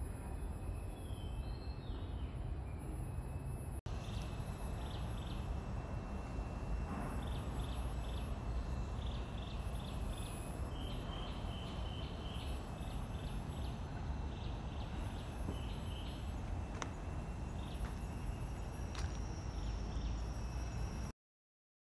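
Outdoor woodland ambience: a bird calling in short, high, repeated notes over a faint steady insect drone and a low rumble. The sound cuts off just before the end.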